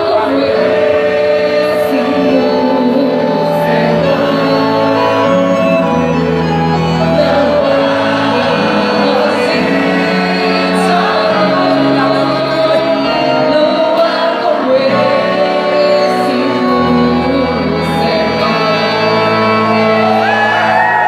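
Loud quadrilha junina song playing: singing over held melody notes and a steady bass line.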